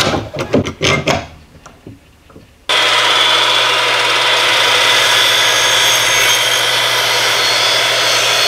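A few knocks and clatter as the board is clamped to the fence, then about a third of the way in a Makita 12-inch sliding compound miter saw starts suddenly and runs steadily, its blade cutting down through a wooden test board.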